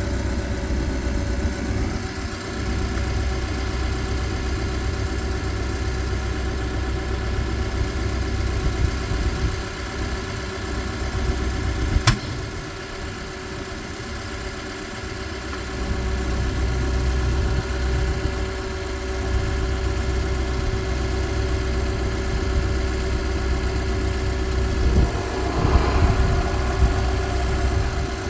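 Case 580N EP backhoe's diesel engine idling steadily, with one sharp click about twelve seconds in.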